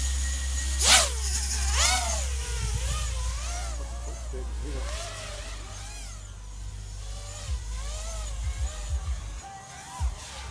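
FPV racing quadcopter (ZMR250 frame, Racerstar 2205 2300KV motors, 5-inch props) taking off: its motor and prop whine climbs sharply in pitch about a second in. It then rises and falls over and over with the throttle as the quad flies about, slowly growing fainter.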